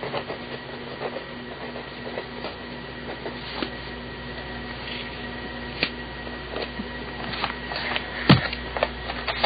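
BIC mechanical pencil with 0.7 mm lead writing on paper: short, irregular scratching strokes over a steady low hum, with one sharp knock near the end.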